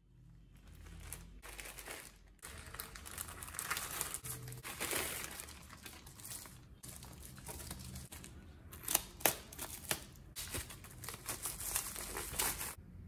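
Plastic mailer bag and bubble wrap crinkling and rustling as they are handled and pulled apart by hand, with a few sharp crackles about nine seconds in. The rustling stops shortly before the end.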